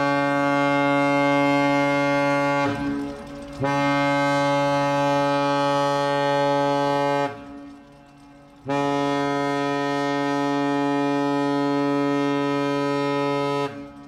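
Ship's horn giving three long, steady blasts of a deep chord, each several seconds long with short gaps between. The first is already sounding and ends a few seconds in.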